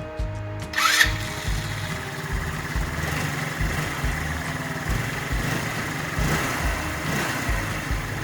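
Background music with a steady thumping beat. From about a second in, an engine-like running noise joins it and holds steady.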